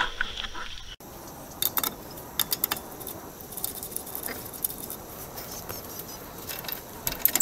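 Sharp metallic clinks and jingles of hand tools being handled while a flat tire is being changed, a cluster of them about two seconds in and more near the end, over a faint steady hiss.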